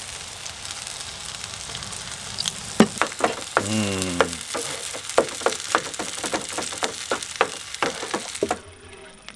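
Sausages and scrambled eggs sizzling in a non-stick frying pan while a wooden spatula scrapes and stirs them in quick strokes. A short falling squeak comes about four seconds in. The sizzle cuts off near the end.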